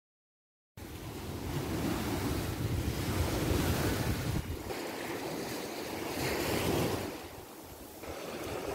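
Silence for under a second, then sea waves breaking and washing up a sand beach in swells, with wind rumbling on the microphone.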